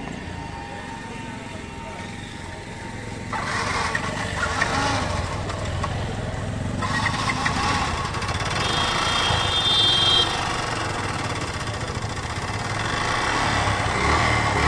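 Motorcycle engine running with a steady low rumble. A louder, busier mechanical noise joins about three seconds in.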